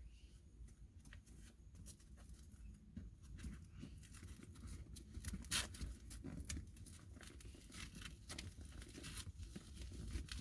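Faint rustling and crackling of a padded fabric seat belt cover being wrapped around a seat belt, its Velcro strips pulled apart and pressed closed, with one louder crackle about halfway through.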